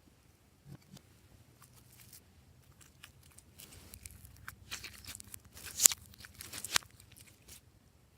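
Crinkly, crackling handling noise of slime being worked with mixed-in items: scattered sharp clicks and crunches that grow busier partway through, with two louder snaps near the end.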